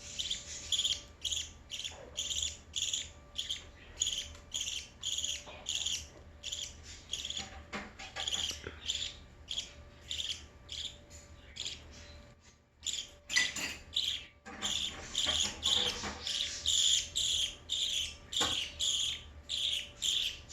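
Budgie chicks begging: short high cheeps repeated about twice a second, with a brief pause about twelve seconds in.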